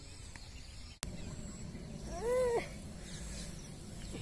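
A single short animal call, rising then falling in pitch over about half a second, about two seconds in, over a steady low outdoor background; the sound drops out briefly about a second in.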